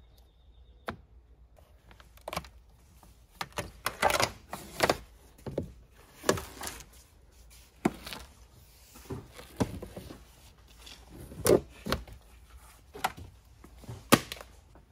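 Hands handling and fitting small parts: irregular clicks, taps and short scrapes, with a few sharper knocks near the end.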